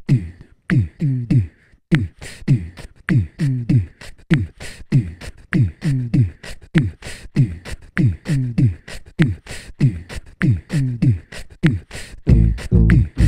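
Beatboxing into a microphone, layered on a loop station: a steady repeating beat of deep booms that drop in pitch and sharp snare-like clicks. About twelve seconds in, a heavy low bass layer comes in under the beat.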